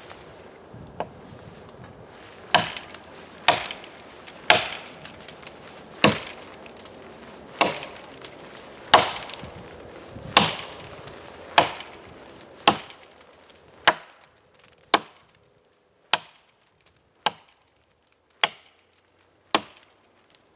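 Axe blows chopping into an oak log, a steady rhythm of sharp wooden strikes about one a second, cutting away the cheeks of a notch while bucking the log.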